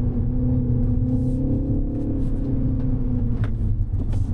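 2025 Mini Cooper S's turbocharged four-cylinder engine pulling under load along with road rumble. The engine note holds steady, then falls away about three seconds in, with a couple of light clicks near the end.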